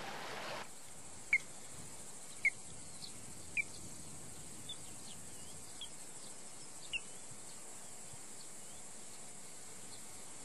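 Outdoor meadow ambience: a steady high insect chirring, with a few short bird chirps, the first three about a second apart and a last one a few seconds later. Running water is heard briefly at the very start.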